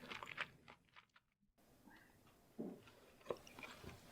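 Faint chewing of a Cheetos-crusted cheese corn dog: a few soft mouth clicks and smacks, with a silent gap about a second in.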